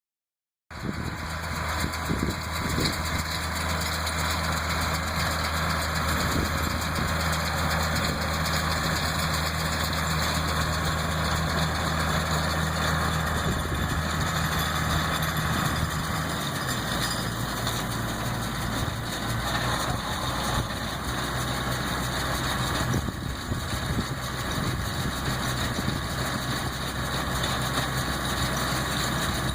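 Tractor engine running steadily while it drives a New Holland 644 round baler baling hay, the baler's mechanical noise over the engine. The engine note drops a little about halfway through.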